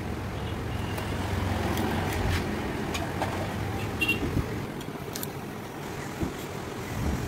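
Steady low rumble of background road traffic, with a few light clicks and taps from the hand knife and steel tongs working the rubber of a truck tire.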